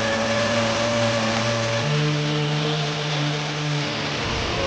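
Power sander running steadily while sanding body seams, a hissing whine that steps up in pitch about two seconds in.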